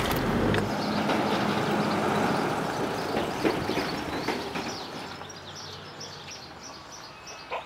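A car towing a box trailer drives away along an asphalt road, its road noise fading steadily. Small birds chirp faintly in the second half.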